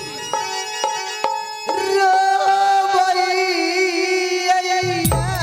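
Folk stage music with regular hand-drum strokes under a long held melodic note that starts about two seconds in and stops just before the end. Deep drum strokes come in near the end.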